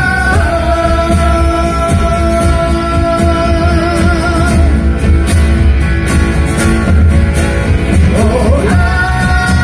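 Live rock band playing loudly: guitars, bass and drums with singing. The melody holds a long note, then slides up into another held note near the end.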